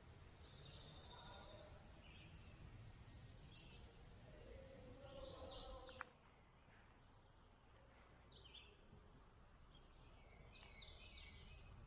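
Faint outdoor ambience: birds chirping now and then over a low steady rumble, with one sharp click about halfway through.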